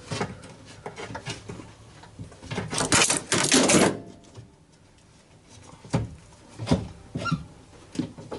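Nissan 350Z door glass being fitted into the door: a series of knocks and clunks from glass and door being handled, with a scraping rasp lasting about a second and a half near the middle as the glass slides in its channel.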